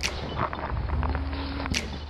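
Footsteps crunching on packed snow, as irregular crackling clicks with two sharper crunches, over a steady low rumble.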